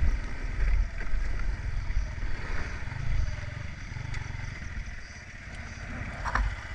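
Motorcycle engine running at low speed, with a pulsing low rumble that eases off about halfway through as the bike slows. A short clatter comes near the end.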